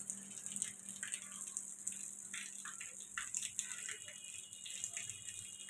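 Light rain falling and dripping onto wet brick paving and puddles: a faint hiss with scattered irregular drips and taps.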